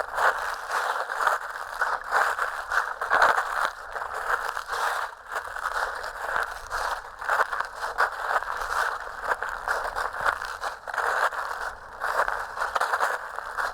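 Footsteps crunching and crackling through dry fallen leaves, step after step at a walking pace.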